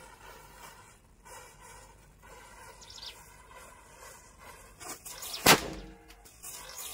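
Matchsticks in a chain flaring and burning with a faint hiss, then a small firecracker goes off with one sharp bang about five and a half seconds in.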